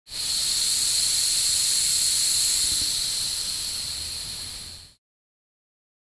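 Gas hissing from a leaking welding torch: a steady, high hiss with a whistling edge. It eases slightly after about three seconds and cuts off about five seconds in.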